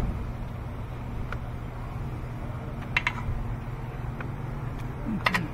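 A steady low background hum with a few light clicks and clinks, about four, scattered through it, from hand tools being picked up and handled.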